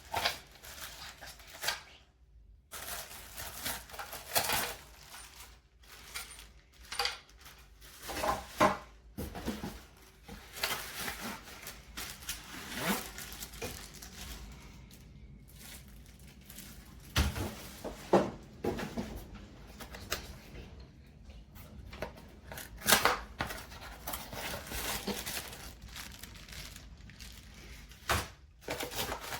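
Irregular clicks, knocks and crinkling rustle of objects being handled by hand, with no vacuum motor running.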